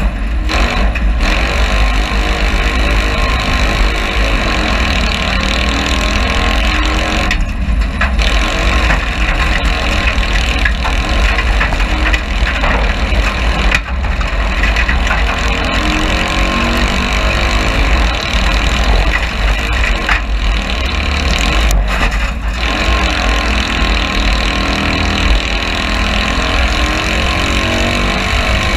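Citroën 2CV cross race car's air-cooled flat-twin engine running hard under racing load, heard from inside the open, caged cockpit with a constant rush of noise over it. The sound dips briefly a few times, near a quarter of the way in, about halfway and a little past two thirds.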